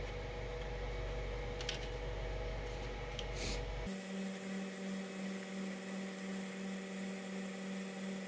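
A few brief rubbing and scraping noises as a 3D-printed plastic vent is handled, over a steady low hum. About four seconds in, the sound cuts abruptly to a different steady low drone.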